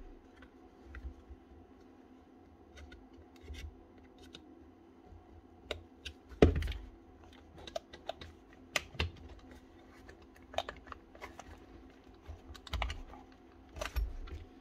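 Scattered sharp clicks and knocks of hand tools against the plastic housing of a cordless power tool being taken apart, a few of them louder, over a faint steady hum.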